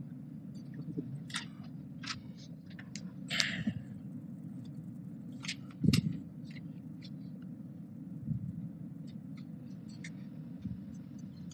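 Scattered clicks and taps of a laptop being handled and operated at a lectern, with a louder knock about six seconds in, over a steady low room hum.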